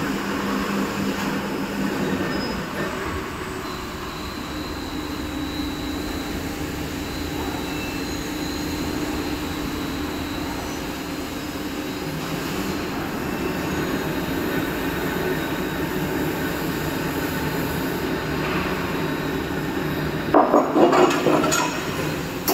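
Electric overhead crane running, a steady machine hum with tones that shift pitch a couple of times. Near the end come several sharp metal clanks as the lifting magnets are set down on a steel channel.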